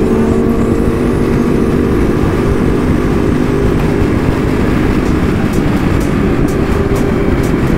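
Big motorcycle engine running steadily at cruising speed, its note holding level, under heavy wind noise rushing over the microphone.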